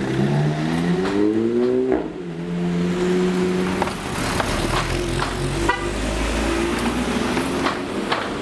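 Alfa Romeo car engine accelerating, its pitch rising over the first two seconds, then cars running on at steady revs.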